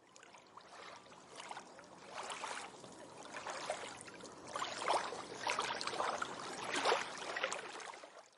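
Water splashing and lapping in irregular surges that build up and grow louder, then fade out at the very end.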